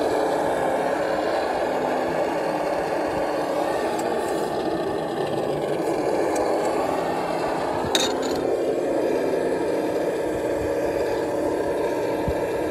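Traxxas TRX-4 RC crawler's electric motor and drivetrain running steadily as it crawls, with scraping and rattling from the tyres and chassis on the terrain. A single sharp clack comes about eight seconds in.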